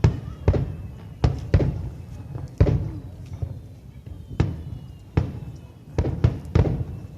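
Fireworks display: aerial firework shells bursting one after another, about a dozen booms in seven seconds at uneven intervals, each with a short rumbling tail.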